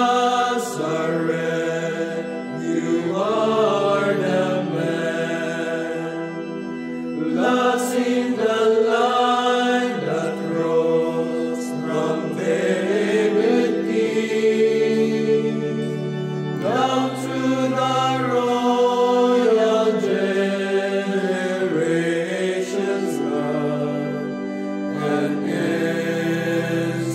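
A male choir of Franciscan friars singing a slow hymn in long held chords.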